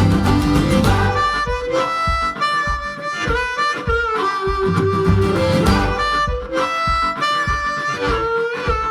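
Background music: a harmonica playing held, bending notes over a plucked acoustic guitar, in a bluegrass/country style.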